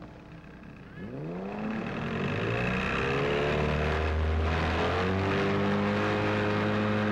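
Motorboat engine revving up about a second in, then running loud and steady at speed, its pitch sweeping up and then holding.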